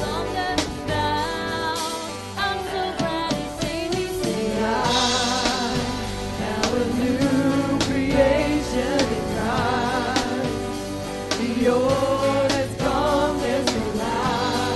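A praise team and congregation singing a gospel worship song together, with instrumental accompaniment keeping a steady beat.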